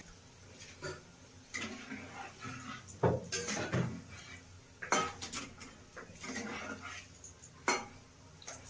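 A metal spatula clinking and scraping against a kadai while turning vegetable chops deep-frying in oil. There are a few sharp knocks, the loudest about three seconds in, over the faint sizzle of the frying oil.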